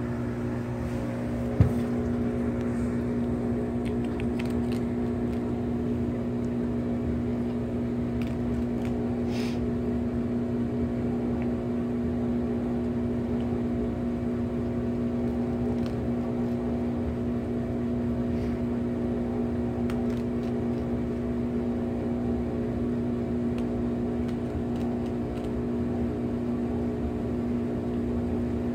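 Steady hum of a running machine, several tones held level without change. A single sharp click about a second and a half in, and a few faint ticks later.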